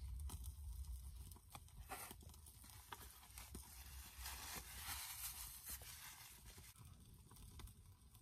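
Faint sounds of eating: scattered small crackles and clicks of chewing and handling food, over a low rumble.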